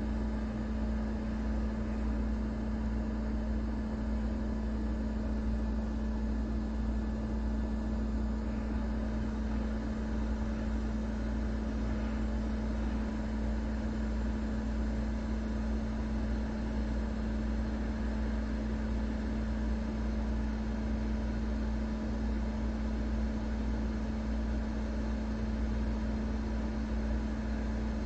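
Hot-air rework station's blower running steadily with a constant hum, heating a suspected shorted retimer chip off a PlayStation 5 motherboard.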